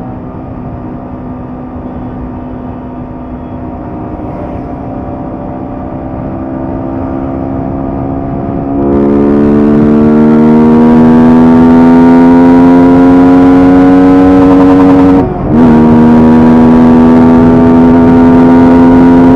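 Yamaha R15M's 155 cc single-cylinder engine, breathing through a high-performance air filter, pulling under way with its note climbing slowly in pitch. About nine seconds in it gets much louder, and it breaks off for a moment around fifteen seconds before carrying on at the same pitch.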